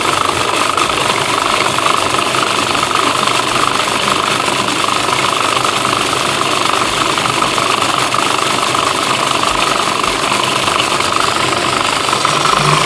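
Electric food processor running steadily, its motor blending soaked raisins with water into a purée.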